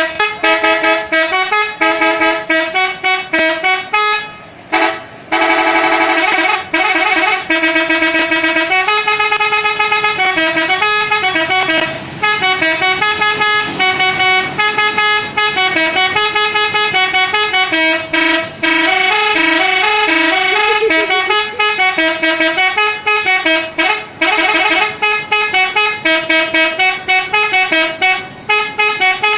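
Indonesian bus 'telolet' musical air horn playing a tune: quick runs of short notes jumping up and down in pitch, nearly continuous with a few brief pauses.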